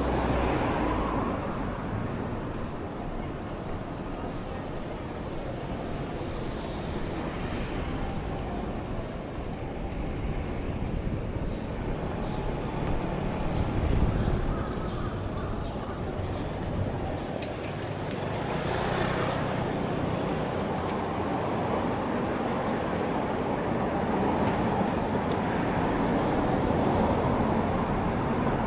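Road traffic on a city street: a steady hum of passing vehicles that swells as vehicles go by about halfway through and again a few seconds later, with two runs of faint, high, short beeps.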